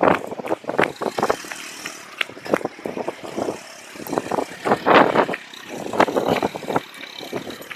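Storm wind and water in a windstorm: an irregular run of loud gusts, buffets and slaps that comes and goes, loudest about five seconds in.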